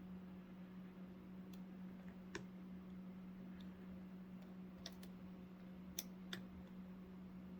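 Faint, scattered clicks of a lock pick and tension tool working the pins inside a Master Lock 410 lockout padlock, about eight light ticks at irregular intervals, over a steady low hum.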